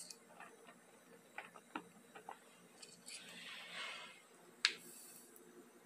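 Quiet handling of small tools: a few faint clicks and taps as pliers grip a small steel drill bit, a soft rustle, and one sharp click about four and a half seconds in.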